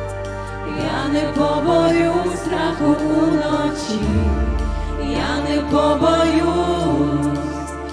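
Live worship song: a woman sings the lead with other voices singing backing, over keyboards and a steady bass line.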